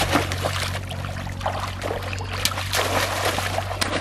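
Water splashing and sloshing as bamboo polo fish traps are plunged again and again into shallow water, in irregular quick splashes over a steady low hum.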